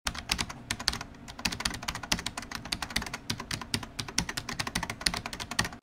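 Typing sound effect: a quick, irregular run of computer-keyboard keystroke clicks, several a second.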